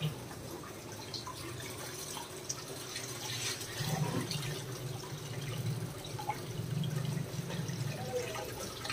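Water pouring and splashing steadily into a planted aquarium as it is refilled after a water change, with small drips and splashes.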